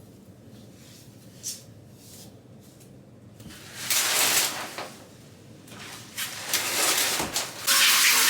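Quiet room sound with a single click, then louder rustling and knocking handling noises, and background music starts near the end.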